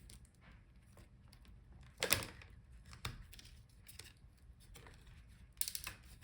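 Quiet handling of laptop parts: two brief rustling scrapes, one about two seconds in and one near the end, with a few light clicks between them.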